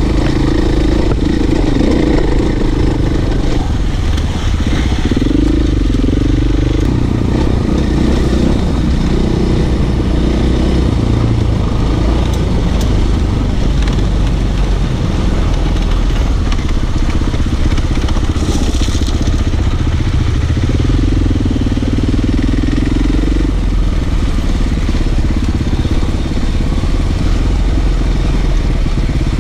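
Motorcycle engine running steadily while being ridden, its note shifting up and down with the throttle.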